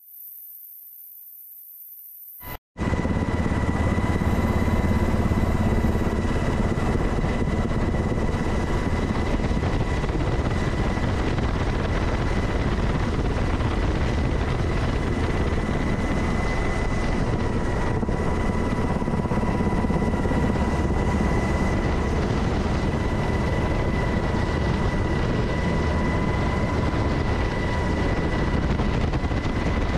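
Helicopter noise heard from inside the cabin through an open door: a loud, steady drone of rotor and turbine with a steady whine over it. It starts abruptly about two and a half seconds in, after a quieter stretch with a faint high whine.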